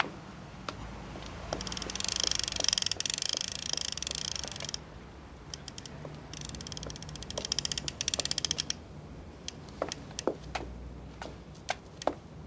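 Rapid light clicking in two stretches of two to three seconds each, then a few separate sharp taps of footsteps on paving stones.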